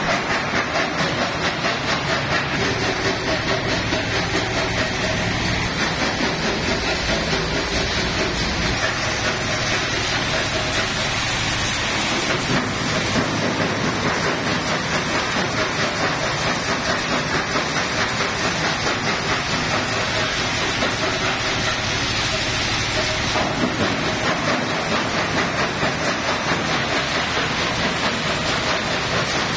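Jaw stone crusher running loaded: a loud, continuous clatter and grinding of rock being crushed, with crushed gravel rattling through a perforated drum screen and pouring out, pulsing quickly and evenly.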